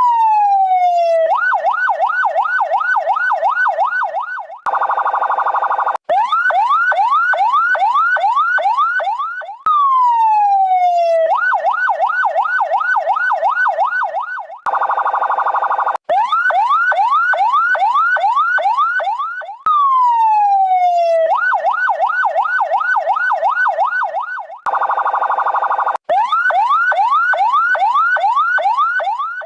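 Electronic ambulance siren in the Indonesian seruni style: a falling wail, then a fast yelp of about three rises a second, broken by a steady horn blast of about a second, the pattern repeating every ten seconds.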